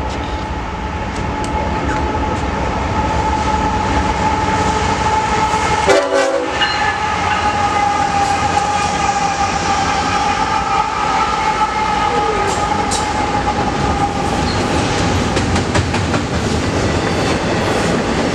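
BNSF diesel freight locomotives sounding a long, steady air-horn chord while a double-stack intermodal train approaches and passes, with engine and wheel rumble throughout. There is a brief knock about six seconds in. The horn fades out about three-quarters of the way through, leaving the wheels clattering over the rails as the container cars go by.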